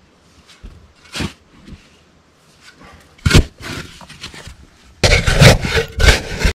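Short shovel digging into loose sand: a couple of single scrapes and thuds, then a close, loud run of quick digging strokes from about five seconds in.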